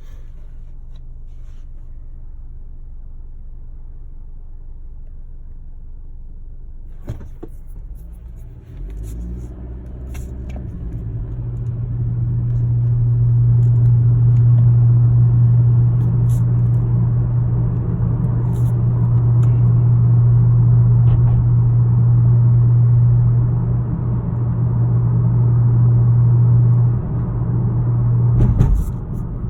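Low, steady hum from a 2018 Honda Accord Sport's turbocharged 1.5-litre four-cylinder engine, a noise the owner says isn't normal. After a brief rising sound, the hum swells about a third of the way in and holds loud and steady, then drops away near the end with a knock.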